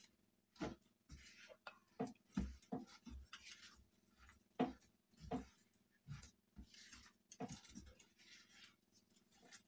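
A wooden spatula scrapes and knocks against a non-stick kadhai, stirring a thick, crumbly mix of ground sesame seeds, jaggery and mawa. The strokes are faint and irregular, one or two a second.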